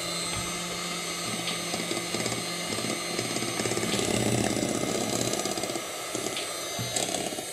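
Electric hand mixer running steadily, its twin beaters whirring through thick cake batter in a glass bowl.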